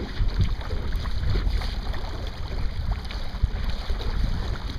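Wind buffeting the microphone in gusts, over water rushing and splashing along the hull of a Sunfish sailboat under way.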